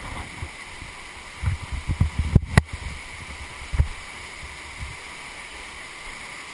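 Swollen Patapsco River rapids rushing steadily in high water. A cluster of low knocks and bumps, sharpest about two and a half seconds in, and one more just before four seconds.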